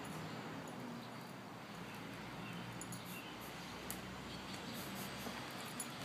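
Two puppies digging in garden soil: paws scraping and scratching at dirt, with scattered small clicks and a couple of soft knocks.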